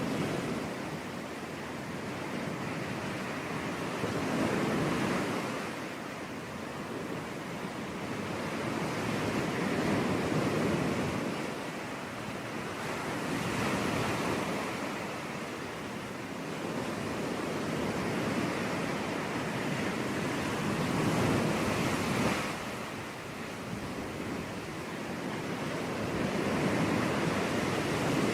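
Sea waves washing onto a beach, a steady surf that swells and recedes every five or six seconds.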